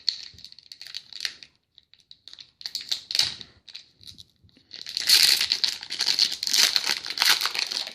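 Trading card pack wrappers crinkling and tearing as packs are opened by hand: scattered crackles at first, then a dense run of crinkling from about halfway.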